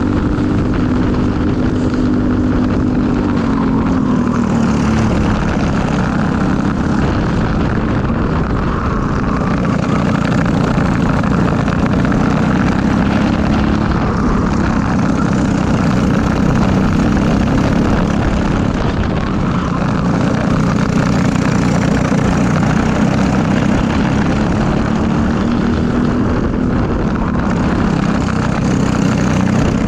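Briggs & Stratton LO206 single-cylinder four-stroke kart engine running hard, heard on board. Its pitch drops about three seconds in and climbs again near the end, over steady wind and tyre noise.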